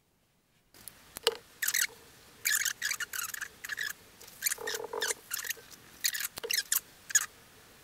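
Paintbrush bristles scratching across mount board in quick strokes, laying on thick glitter acrylic paint: a string of short, high, scratchy swishes a fraction of a second apart.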